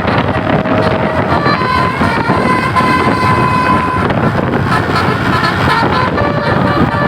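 A tour bus's Basuri telolet musical horn playing a tune of long held notes that step up and down in pitch, over heavy wind and traffic noise.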